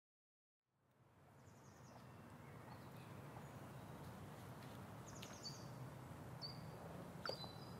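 Faint outdoor ambience fading in from silence about a second in: a steady low background noise with several short, high bird chirps over it.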